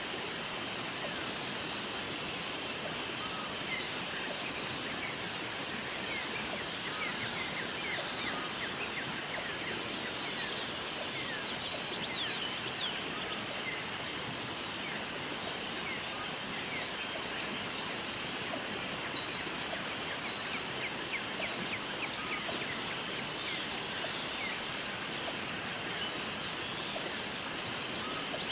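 Waterfall and jungle ambience: a steady rush of falling water with many quick bird chirps over it. A high, even buzz comes and goes every few seconds, each time lasting one to three seconds.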